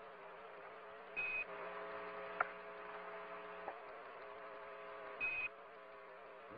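Steady electrical buzzing hum of a radio transmission channel, broken by two short high beeps about four seconds apart, Quindar-style tones of the kind that keyed Apollo radio transmissions. A sharp click falls between the beeps.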